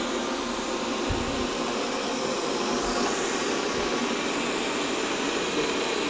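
Xiaomi robot vacuum cleaner running with a steady, even whir from its suction fan as it drives across the floor.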